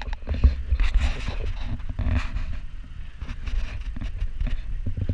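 Small dive boat's outboard motor running low under irregular knocks and rubbing close to the microphone, with a sharp click at the very start.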